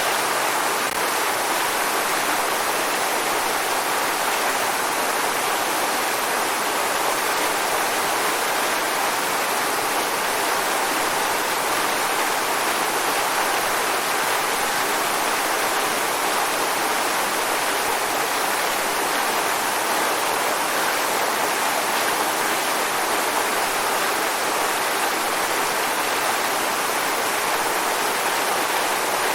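Waterfall: steady rushing water with no change in level.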